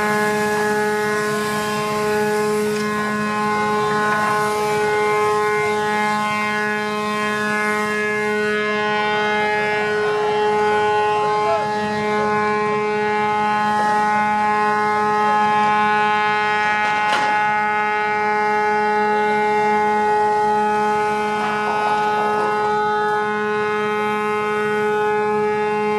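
A ship's horn sounding one long, unbroken blast at a steady pitch. One sharp knock comes partway through.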